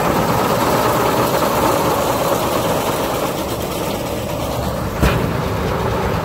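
Tractor engine running steadily as it pulls a Krone KR 125 round baler, with one sharp knock about five seconds in.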